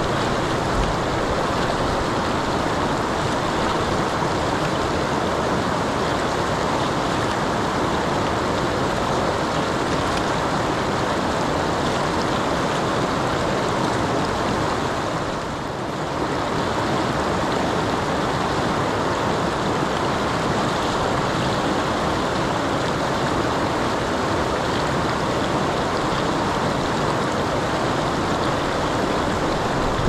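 Steady rushing of river water, an even constant noise with a brief slight dip about halfway through.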